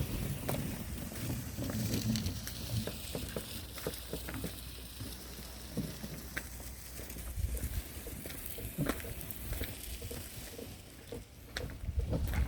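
Cable-pulling machine running with a steady low rumble, over scattered clicks and knocks as power cable is drawn through underground duct.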